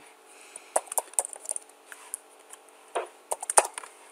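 Typing on a computer keyboard: irregular single keystroke clicks, the sharpest about three seconds in and shortly after.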